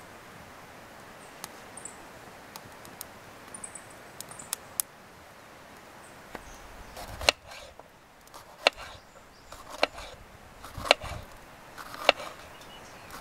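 Kindling fire crackling and popping in a small steel box stove. About seven seconds in, a kitchen knife starts slicing a green pepper on a wooden cutting board, with a sharp knock of the blade on the board about once a second.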